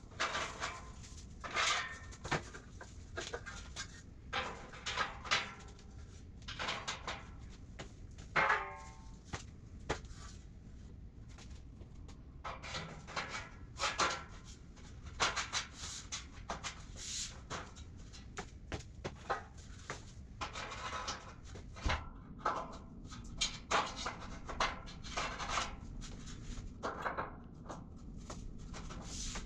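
Steel shelving beams of a Husky welded steel storage rack clanking and rattling as they are handled and fitted into the uprights: irregular metallic knocks and clatters, with a brief metallic ring about eight seconds in.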